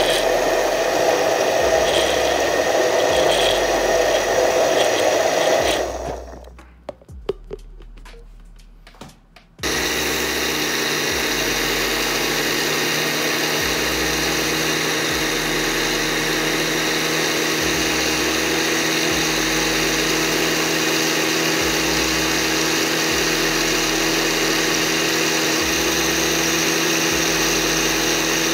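Countertop blender motor running at medium speed, churning a chocolate milkshake in a glass jar. About six seconds in it stops, leaving a few seconds of low sound with a few small clicks. It then runs again steadily, with a hum of a few fixed pitches.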